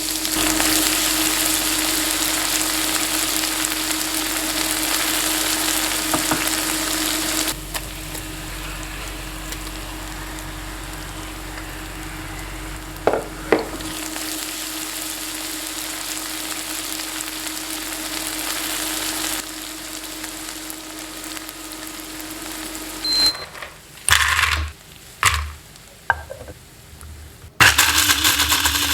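Food sizzling in hot oil in a cooking pot, a steady hiss that steps down in loudness twice. Near the end, a few sharp knocks of utensil on pot come before loud sizzling starts again.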